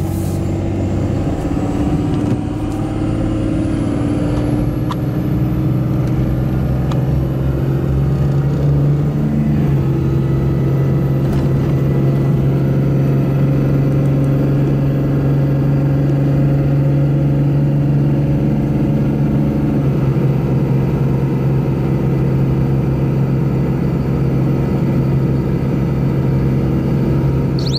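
5.9 Cummins turbo-diesel of a Ram 2500 pulling hard under a heavy trailer load, heard from inside the cab, with a high turbo whistle rising in pitch over the first several seconds. The engine note changes about ten seconds in, then holds steady.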